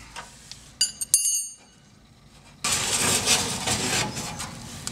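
A few light metal clinks with a short high ring about a second in, from steel parts being handled during floor pan fitting, followed by a steady scratchy rustling hiss.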